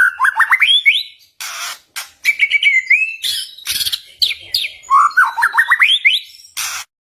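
White-rumped shama (murai batu) singing loudly: quick runs of rising whistled notes, broken by several short, harsh rattling bursts.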